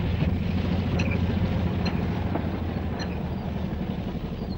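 Narrow-gauge diesel railcar's power unit running as it rolls slowly into the station: a steady low rumble with a few sharp clanks from its coupling rods.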